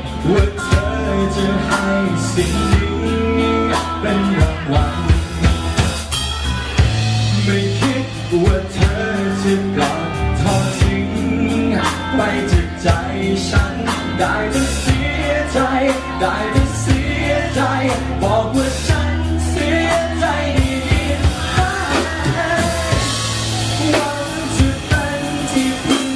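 Male vocalists singing a Thai pop song through microphones with a live band: drum kit, electric bass and guitar.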